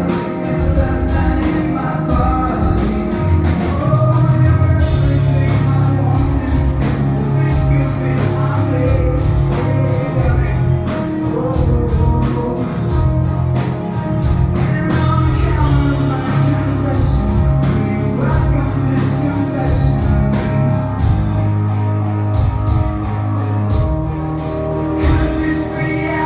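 Live rock band playing: a singer over guitars, with drums keeping a steady beat.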